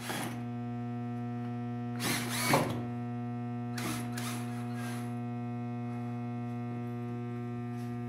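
Cordless drill driving a paddle mixer through paint in a five-gallon bucket, its motor running at a steady pitch. Two brief louder noisy bursts come about two seconds and about four seconds in.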